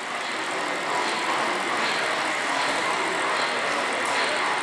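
O-gauge model steam locomotive and coaches running along the layout track, a steady rolling noise mixed with the general hum of the exhibition hall.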